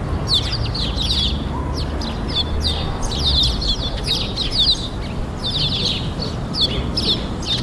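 Small songbirds chirping in quick, repeated runs of high notes over a steady low rumble of city traffic.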